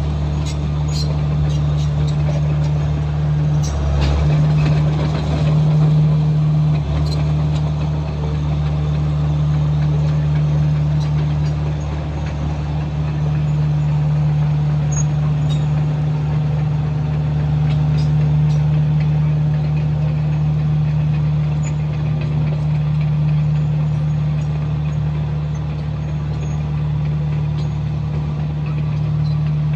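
Komatsu bulldozer's diesel engine running steadily under load, with a brief louder surge about four seconds in and faint scattered clicks and clanks.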